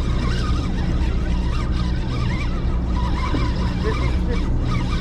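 Steady low drone of the party boat's engines, with a run of short, wavering high-pitched calls over it.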